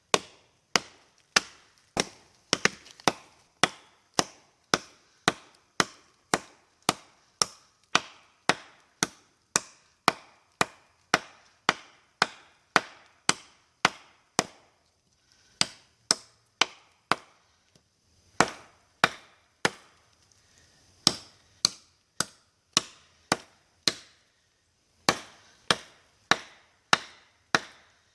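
Condor Lochnessmuk, a big Nessmuk-style knife with a 10-inch 1075 high-carbon steel blade, chopping into a log: sharp strikes into wood about three every two seconds, pausing briefly near the middle and a couple of times later.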